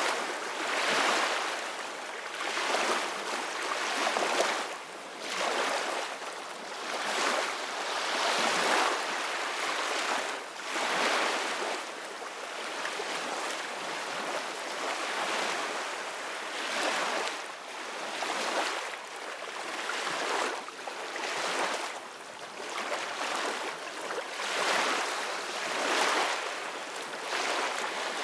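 Ocean waves washing onto shore, a steady hiss that swells and falls again roughly every two seconds.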